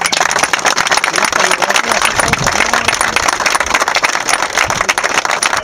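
A small group of people applauding, many hands clapping at once.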